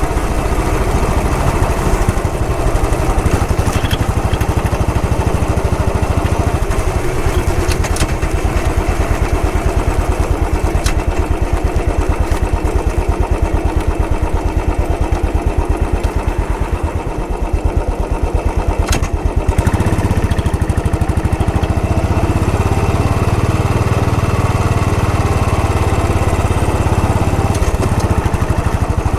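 Royal Enfield Bullet 500's single-cylinder four-stroke engine running with a steady, even beat of firing pulses; the note dips briefly and then shifts lower and stronger about two-thirds of the way through.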